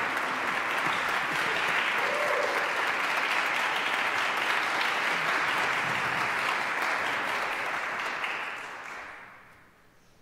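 Audience applauding steadily, the applause dying away from about eight seconds in and gone by the end.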